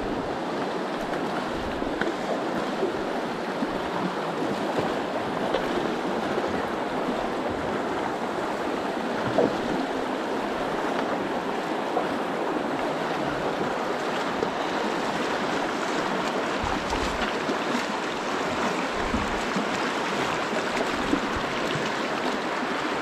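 Virgin River water rushing through the narrow canyon: a steady wash of flowing water, broken by a few short sharp knocks, the clearest about nine seconds in.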